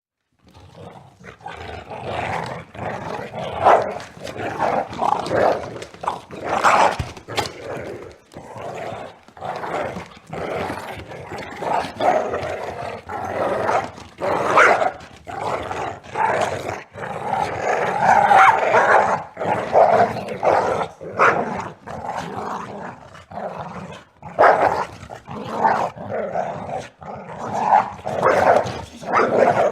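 Two male dogs fighting, growling, snarling and barking viciously without pause, with their nails scrabbling and clicking on a wood floor.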